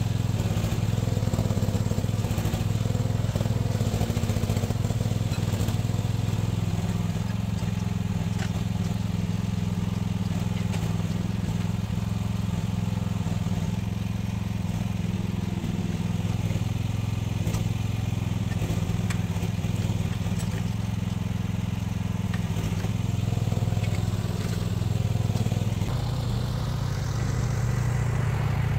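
Diggit EM15 mini excavator's engine running steadily under work, its drone rising and falling slightly as the load changes.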